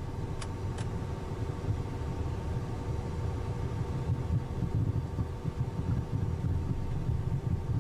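Cessna Citation business jet taxiing, heard from the cockpit: a steady low rumble with a steady hum over it. Two faint clicks in the first second.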